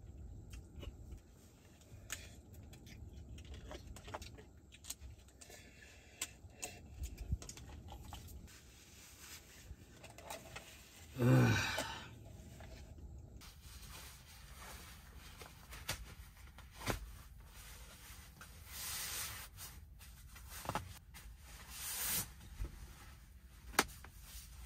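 Close handling sounds: a paper noodle cup and its lid being handled and torn, with scattered light taps and clicks, then short rustles of things being packed away. A brief, louder pitched sound comes about eleven seconds in.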